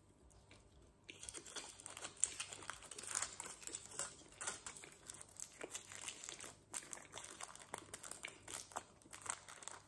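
A sweet wrapper crinkling as it is handled and unwrapped, an irregular run of small crackles that starts about a second in.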